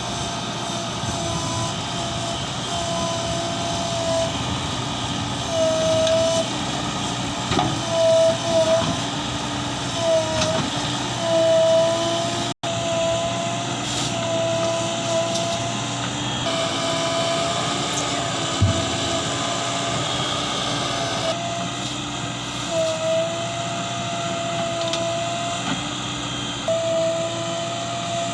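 JCB 3DX Plus backhoe loader at work: its diesel engine runs steadily under a high hydraulic whine that swells and fades again and again as the machine works.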